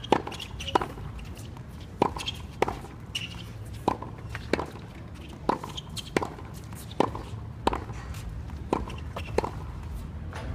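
Tennis ball struck back and forth with racquets in a fast volley rally, about a dozen sharp pocks, often in quick pairs, over a low steady rumble.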